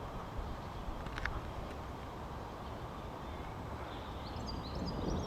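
Outdoor ambience: a steady low rumble, with a small bird chirping a short, quickly repeated phrase about four seconds in.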